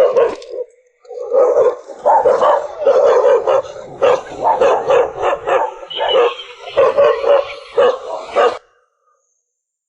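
A dog barking over and over, short loud barks a few a second, stopping abruptly near the end.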